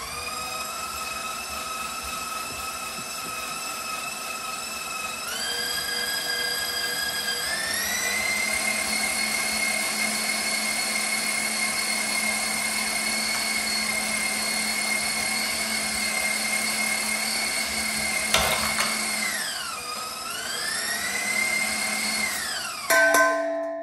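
KitchenAid stand mixer motor driving the slicer/shredder attachment as it shreds carrots: a steady high whine that steps up in pitch twice in the first eight seconds. Near the end it sags and recovers, then stops with a clunk.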